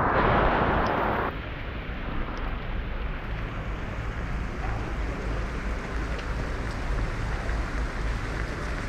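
Heavy rain falling on a street, a steady hiss with a low rumble of wind on the microphone. About a second in, a louder rush of rain cuts off abruptly.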